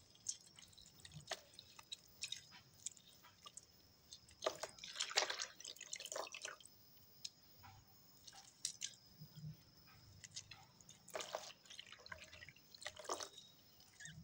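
Hand squeezing a lemon and stirring soapy water in a basin: faint drips and small splashes, busiest around four to six seconds in, with two sharper splashes near the end.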